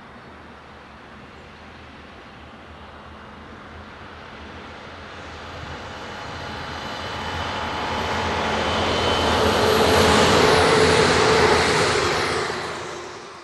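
A train approaching and passing at speed: a steadily rising rush of wheel and rail noise with a few high whining tones, loudest about ten seconds in. The tones drop in pitch as it goes by, and the sound falls away quickly near the end.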